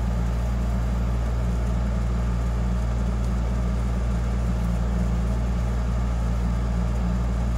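A steady low hum, unchanging throughout, with nothing else standing out.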